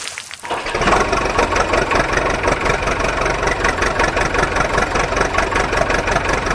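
Tractor engine idling, cutting in under a second in and then running steadily with an even pulsing beat.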